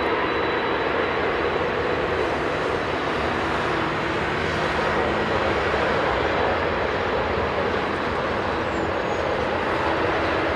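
Airbus A380-841's four Rolls-Royce Trent 970 turbofans running steadily at take-off power, a continuous jet noise with a few faint steady hums in it, heard from behind the aircraft.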